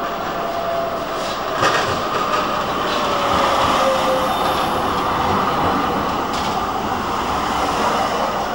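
A Grenoble TFS low-floor tram passing close by on curved street track, its running noise swelling and then easing off. A thin tone slowly falls in pitch, and there is a sharp click about a second and a half in and another near the end.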